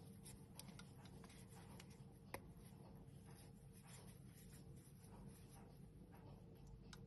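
Near silence: faint scratchy rustling and small clicks of gloved hands handling a steel wristwatch, with one sharper click about two and a half seconds in, over a low steady hum.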